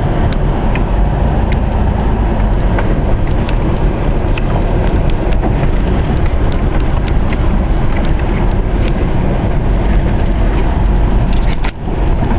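A vehicle driving, a steady low rumble of engine and road noise with scattered small clicks and knocks, and a brief drop in sound near the end.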